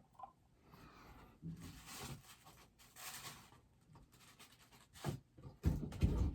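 Hands handling a plastic bobblehead and its packaging: intermittent scraping and rustling, with a few louder bumps near the end as the figure is fitted onto its base.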